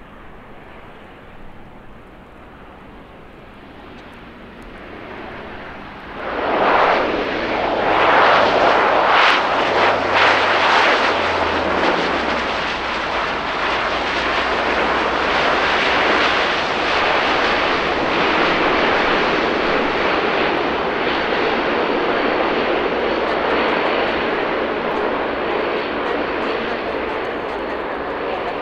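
Jet airliner engines: quiet at first, then the noise jumps suddenly about six seconds in and stays loud as a steady rushing sound.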